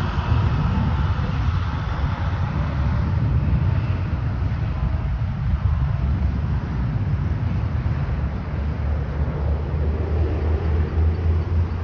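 Road traffic driving past on a multi-lane road, fire engine and ladder truck among it: a steady low rumble of engines and tyres, with no clear siren.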